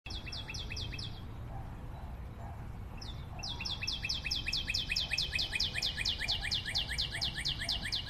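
Cockatiel giving a rapid string of short, falling chirps, about six a second. A brief burst comes first, then a pause, then a longer unbroken run from a few seconds in.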